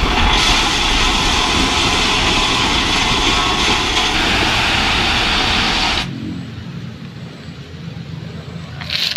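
Steady truck engine noise that cuts off abruptly about six seconds in, leaving a quieter low hum. A few light clicks come near the end.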